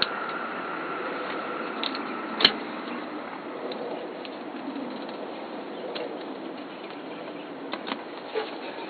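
Short sharp metal clicks and taps from pliers working on a tractor's gear shift lever, the loudest single click about two and a half seconds in, a few lighter taps near the end. A steady hiss of background noise throughout; the engine is not running.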